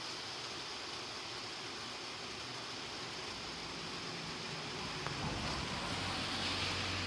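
Honda Super Cub C100's 49 cc single-cylinder four-stroke engine running with a steady hiss, its carburettor freshly overhauled after rust in it had made the engine run unevenly. A low steady hum joins near the end.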